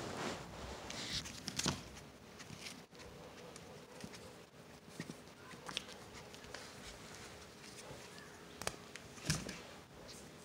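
Puppies scrambling and rustling on a plush dog bed and on the fur of an adult dog: irregular soft scuffs and small clicks, with a louder scuffle about nine seconds in.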